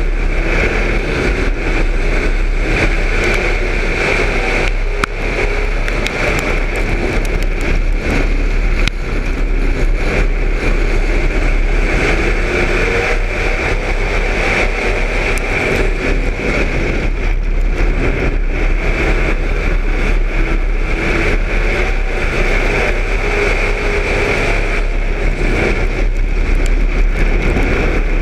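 Street stock dirt-track race car's engine running hard at racing speed, heard from inside the car: loud and steady, with no let-up.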